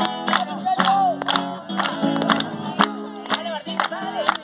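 Acoustic guitar strummed in a steady rhythm, with a group's voices over it.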